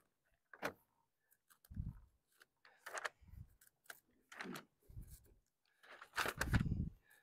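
Handling noise at a lectern: paper rustling and small clicks, with several dull thumps on the lectern, the loudest near the end, as pages are leafed through to find a Bible passage.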